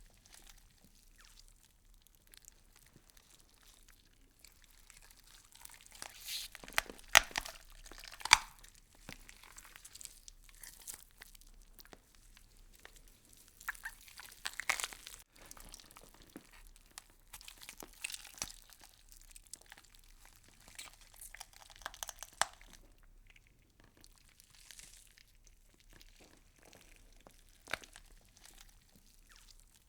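Crisp crunching and crackling of leaves being chewed by insects, coming in irregular spells with a few sharp clicks.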